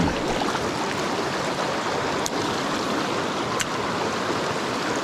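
Mountain trout stream rushing over rocks: steady water noise, with two faint clicks about two and three and a half seconds in.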